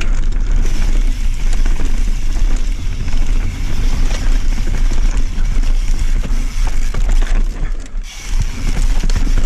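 Wind rushing over a bike-mounted camera microphone as a mountain bike descends a dry dirt trail at speed, with the bike rattling and its tyres rolling over the ground; the noise eases briefly about eight seconds in.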